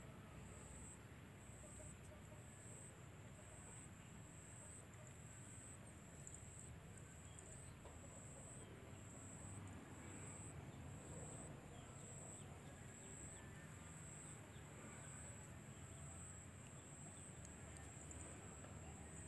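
Faint, high-pitched insect chirping in an even rhythm, about one pulse a second, over a low background hum.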